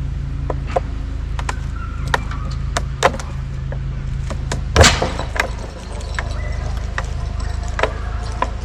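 Heavy machinery engine running steadily, with sharp metallic clanks and knocks over it, the loudest about five seconds in.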